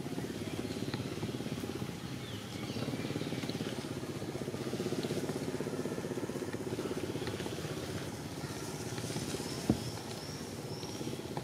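A steady, low pulsing hum of an engine running in the background, with one sharp click about ten seconds in and a few faint high chirps near the end.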